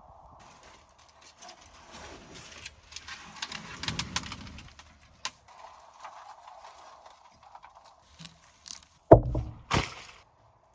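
Rummaging through debris and old items in a truck cab: rustling and scattered clatter, busiest in the first half, then two heavy knocks close together near the end.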